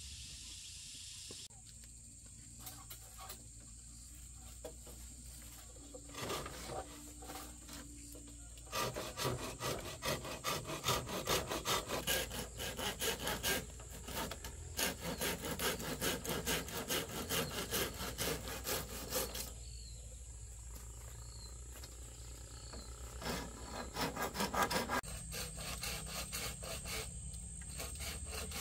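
Hand saw cutting through bamboo in quick back-and-forth strokes for about ten seconds, then a shorter run of strokes later.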